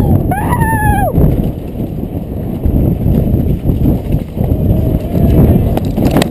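Downhill mountain bike ridden fast over a rough dirt trail, heard from a helmet camera: a loud, continuous rattle and rumble of tyres, frame and wind buffeting, jolting unevenly over bumps. A brief high-pitched squeal rises and falls about half a second in.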